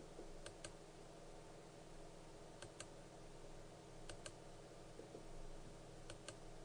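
Faint computer mouse clicks, four quick double clicks about every one and a half to two seconds, over a low steady hum: left-clicks placing vertices one at a time.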